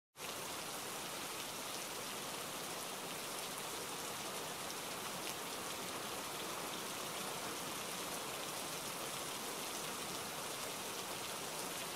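Steady, even hiss of noise that does not change.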